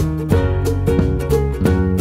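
Background music: plucked acoustic guitar over a bass line, with notes picked at a steady pace.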